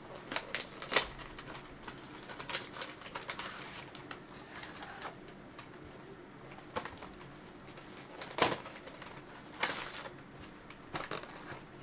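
Scattered crinkles, taps and clicks of a Pokémon card collection box's packaging being handled, with a few sharper snaps about a second in and again near the end.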